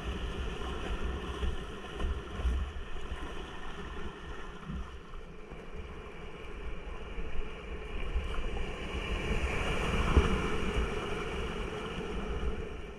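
Whitewater rapids rushing around a kayak, with low wind rumble on the microphone; the rush builds louder about ten seconds in as the boat runs through white water.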